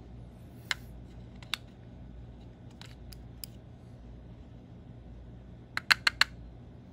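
AA batteries clicking and tapping against the plastic battery compartment of a wireless mouse as they are handled and fitted: a few separate sharp clicks, then a quick run of four louder clicks near the end as a battery is pressed into place.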